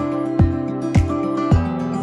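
Instrumental background music with a steady low beat just under twice a second under sustained melodic notes.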